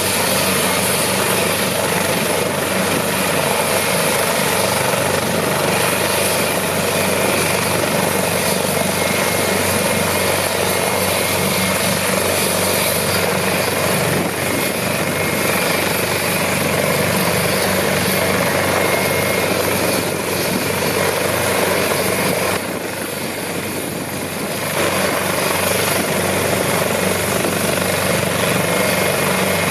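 AgustaWestland AW189 helicopter running on the ground with its main rotor turning, before lift-off. Its twin turboshaft engines give a steady high whine over the rotor noise, which dips briefly in level for about two seconds near the end.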